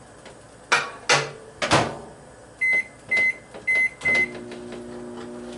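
Microwave oven being started: a few knocks, four short keypad beeps, then the oven switches on with a steady hum about four seconds in.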